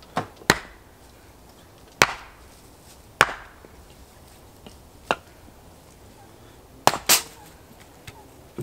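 Hatchet chopping firewood into kindling: several sharp chops at irregular spacing, two in quick succession near the end.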